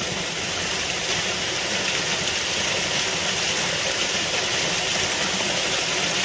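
Water of a shallow rocky stream rushing steadily, an even hiss with no separate splashes.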